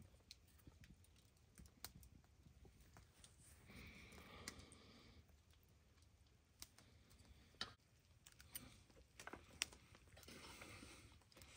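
Faint, scattered small clicks and taps of utensils and food being handled at a meal, with two soft rustling stretches, about four seconds in and near the end.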